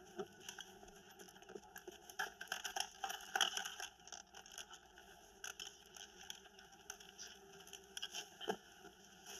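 Faint, scattered clicks, scrapes and rustles, busiest in the first four seconds, then sparse, with one sharper click near the end.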